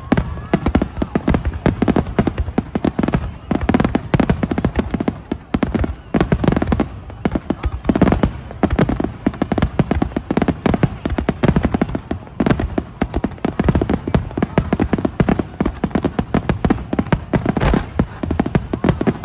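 Aerial fireworks shells bursting in a rapid, continuous barrage. Many sharp bangs and crackles overlap, several each second, with no pause.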